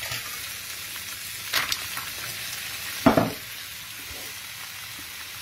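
Mussels in their shells, with onion and spring onion, sizzling in a frying pan on the heat. A steady hiss, with the shells knocking in the pan twice, loudest about three seconds in.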